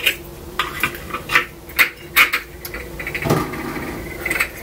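French press plunger and steel mesh filter being handled and screwed together: a series of light, irregular clicks and rattles, with a short rougher scraping stretch about three seconds in.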